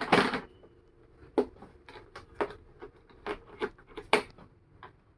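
Handling noise from die grinder kit parts: a brief loud rustle at the start, then about a dozen irregular sharp clicks and taps as hard pieces are picked up and set down.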